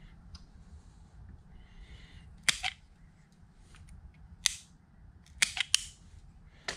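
A hand-held wire stripper snapping on the motor-control wire ends. There are about six sharp clicks: one about two and a half seconds in, another near the middle, and three in quick succession plus one more near the end, over faint rustling as the wires are handled.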